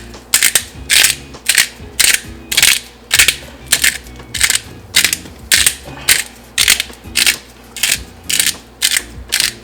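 Black pepper mill grinding peppercorns, twisted back and forth in quick, even strokes of about three a second, each a short rasping crunch.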